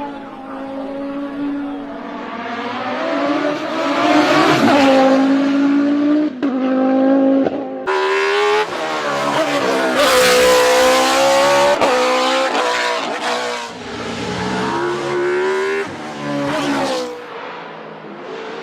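Rally car engine run hard at high revs, its pitch climbing and dropping again and again through gear changes and lifts off the throttle. The sound jumps abruptly a couple of times.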